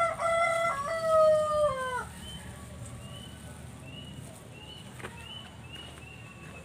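A rooster crowing once, a loud call of about two seconds that holds its pitch in steps and drops at the end. It is followed by a series of faint high chirps.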